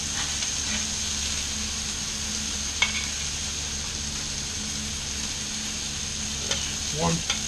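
Food sizzling steadily on a Blackstone flat-top griddle while a metal spatula scoops vegetables off it, with a single clink about three seconds in.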